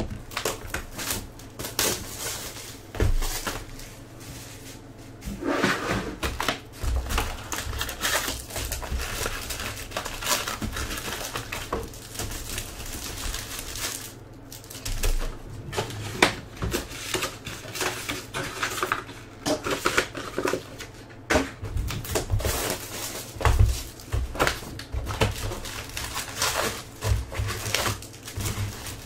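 Foil-wrapped packs of Topps Chrome baseball cards being handled and opened by hand: irregular crinkling of wrappers, with clicks and taps of cards and cardboard.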